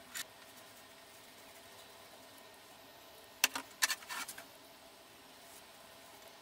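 A few sharp clicks and taps from a steel rule and a marking tool being handled on a steel bar, bunched about three and a half to four and a half seconds in, over faint room tone.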